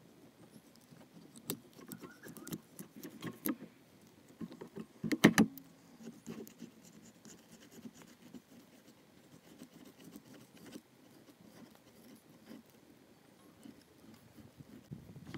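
Knife and fish being handled on a plastic cutting board while a flathead is skinned: scattered clicks and knocks, with the loudest cluster about five seconds in, then fainter ticks and rustling.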